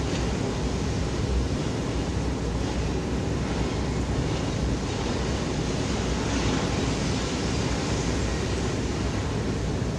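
Steady noise of a long-reach demolition excavator at work on a concrete building, its diesel engine running without a break.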